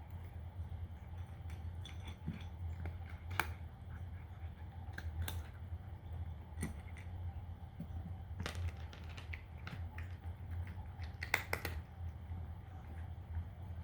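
A cat crunching dry kibble close to the microphone: irregular sharp crunches and clicks, with a quick cluster of them near the end, over a steady low hum.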